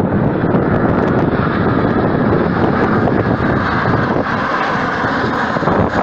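Jet airliner's engines running as it flies low over the runway, heard through strong wind buffeting on the microphone.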